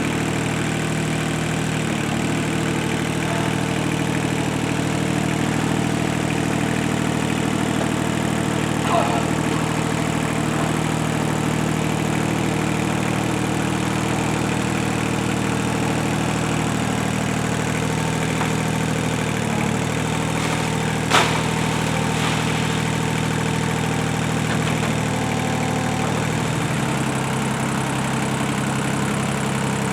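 Tractor engine running steadily. There is a short knock about nine seconds in and a sharper one about twenty-one seconds in, and the engine note changes near the end.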